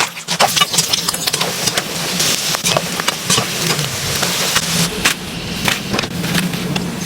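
Fish balls sizzling in hot oil in a pan, a dense hiss full of quick crackles and pops over a low steady hum.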